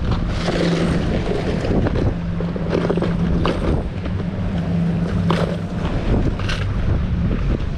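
Wind buffeting the microphone by the sea, with a low motor hum, as from a boat, that comes and goes.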